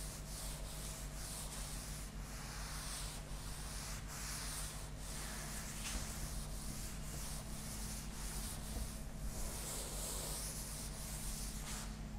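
A cloth rubbing back and forth across a chalkboard, wiping off chalk: a run of soft, repeated swishes.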